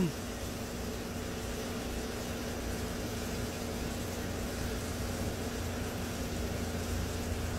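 Steady low rumble and hiss of outdoor background noise with a faint constant hum, without distinct events.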